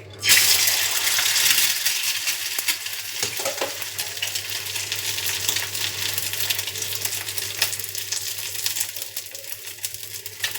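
An egg dropped into very hot oil in a frying pan: a sudden loud sizzle with spattering crackles, easing off slowly as it fries.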